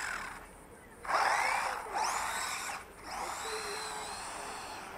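Wltoys A959 4WD RC buggy's electric motor whining in bursts that rise in pitch as it accelerates, over the rush of its tyres on asphalt. The strongest burst comes about a second in, with a steadier run after about three seconds.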